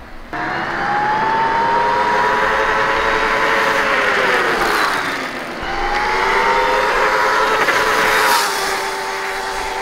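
High-pitched electric motor whine from a 1993 Kawasaki KX250 converted to electric drive with a QS138 hub-style motor, rising in pitch as the bike accelerates in first gear. The pitch sags about halfway through and climbs again, then levels off near the end, over tyre and wind noise.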